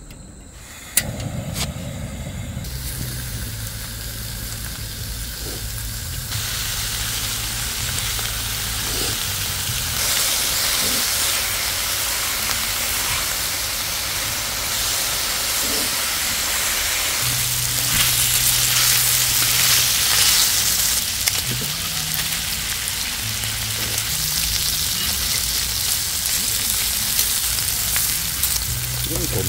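Pork slices sizzling and frying on a hot griddle pan over a gas camping burner. The sizzle starts about a second in and grows louder as more meat goes on, then holds steady.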